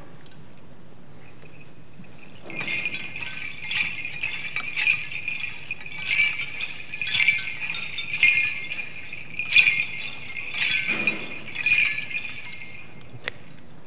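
Small bells on a swinging church censer jingling in pulses about once a second, roughly ten swings in all, as the casket is censed.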